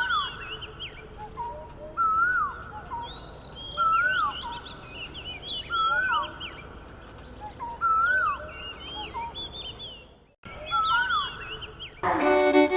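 Wild birds singing: one bird repeats a short whistled phrase about every two seconds while other birds chirp higher over it. It breaks off briefly near the end, then string music starts.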